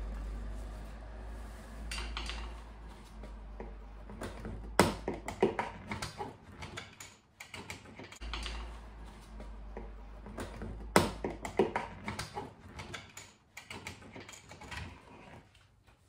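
Screwdrivers and plastic trim parts clicking and tapping as the screws, trim caps and clips on a Mitsubishi's inner door trim are undone. Two sharp, louder clicks come about five and eleven seconds in. A low steady rumble runs under much of the first half.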